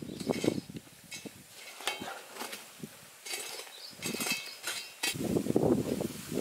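Hot charcoal embers clinking and a metal ladle scraping as the coals are spread over the metal lid of a dum biryani pot, in irregular light clinks and scrapes. About five seconds in, a louder, steady rushing noise takes over.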